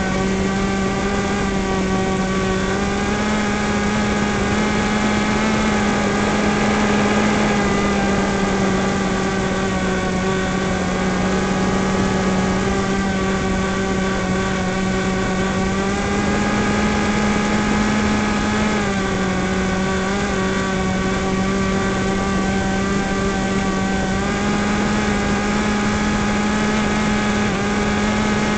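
Harbor Freight Yellow Bee RC plane's motor and propeller running steadily in flight, heard from on board. Its pitch steps a little up and down a few times, over a steady hiss.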